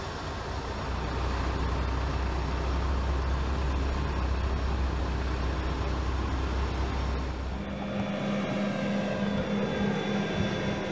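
Steady low engine rumble of an aircraft tow tractor hauling a helicopter. About eight seconds in it gives way to a steadier machine hum with a low droning tone.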